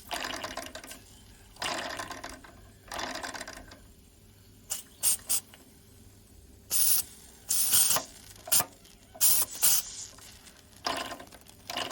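Short, irregular hisses of steam escaping from the Mamod SE1 toy steam engine's oscillating cylinder as it is worked by hand, with small mechanical clicks and handling noise; the boiler is under steam pressure but the engine is not running properly.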